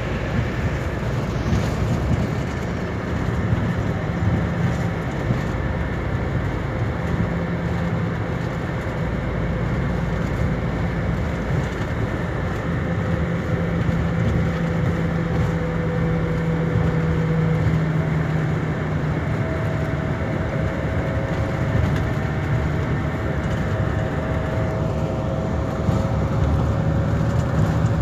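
Steady drone of an intercity bus under way, heard from inside the passenger cabin: a low engine hum over road and tyre noise.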